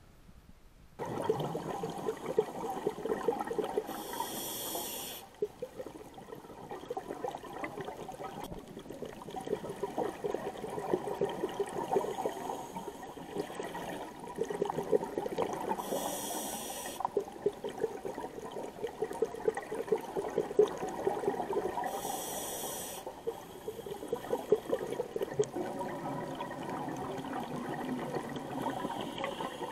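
Scuba regulator breathing heard underwater: long stretches of bubbling exhaust bubbles, broken three times by a short high hiss of air on the inhale. It starts suddenly about a second in.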